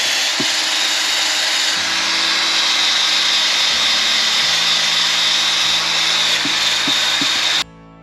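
A power tool's spinning wire-brush attachment scouring old paint and loose grime off metal engine parts: a steady, loud whirring scrape with a thin high whine. It cuts off suddenly near the end, and soft music follows.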